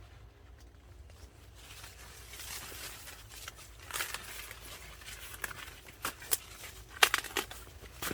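Dry corn husks and leaves rustling and crackling, with a series of sharp snaps in the second half, the loudest about seven seconds in.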